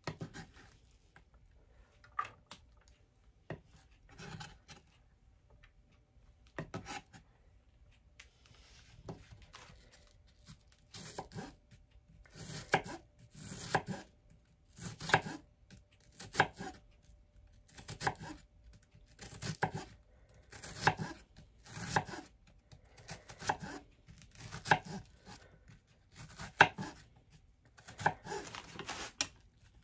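Kitchen knife cutting an onion on a wooden cutting board: a few scattered knocks at first, then a slow steady rhythm of cutting strokes, about one every second and a half.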